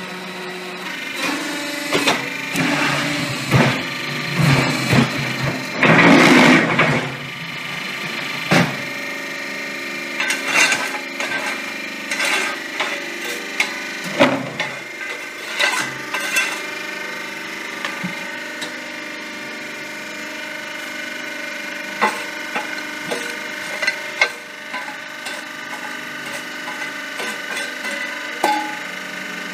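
Semi-manual hydraulic concrete block and paving block machine at work: the electric motor and hydraulic pump give a steady hum, with repeated knocks and clatter of wooden pallets and the steel mould as the levers are worked. A louder rattling noise lasts about a second around six seconds in.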